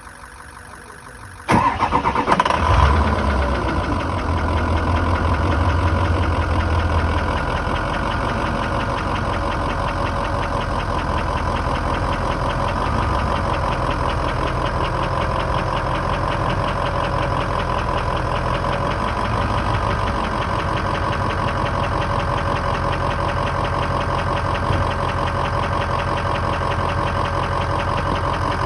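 2003 Ford F-250's 6.0-litre Power Stroke V8 diesel starting about a second and a half in, running at a fast idle for a few seconds, then settling to a steady idle. It carries a soft knock from the right side near the alternator, which a diesel mechanic traced with a stethoscope to the injector area above the pistons.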